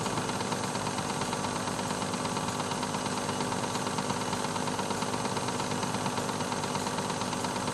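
Film projector running: a steady whir with a fast, even clatter.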